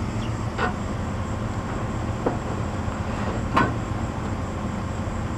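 Pickup truck engine running with a steady low rumble, heard from inside the cab, with three short knocks, the last and loudest about three and a half seconds in.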